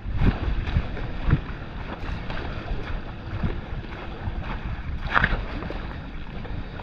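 Footsteps on a wet, muddy, pebbly shore path, with irregular knocks and scuffs, under steady wind rumbling on the microphone.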